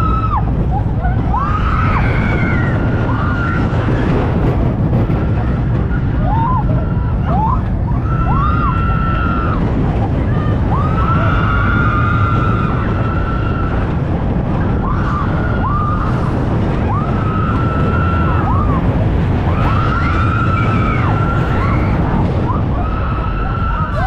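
Windstorm-model steel roller coaster train running through its tight curves: the wheels squeal again and again in high whines, each a second or two long, over a steady low rumble of the train and rushing air.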